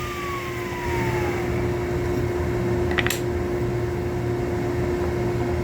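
An electric power tool's motor winding down after being switched off, its whine falling in pitch and fading out over the first second and a half. A steady machine hum runs underneath, and a single sharp click comes about three seconds in.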